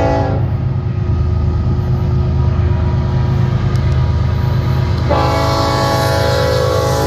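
BNSF coal train's lead diesel locomotive sounding its multi-chime air horn: one blast cuts off about half a second in, and a second long blast starts about five seconds in, over the steady low rumble of the approaching locomotives.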